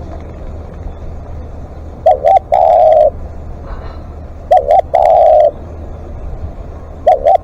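Spotted dove cooing: three phrases about two and a half seconds apart, each two quick notes and then one long held coo, over a steady low hum.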